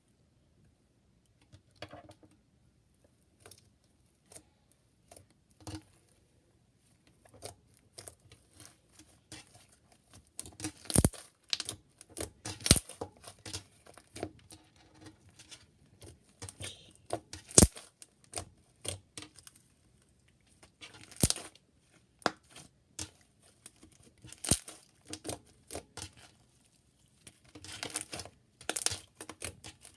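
White-glue slime being mixed and kneaded by hand: irregular sticky clicks and crackling pops, sparse at first and thickening after several seconds, with a few sharper snaps.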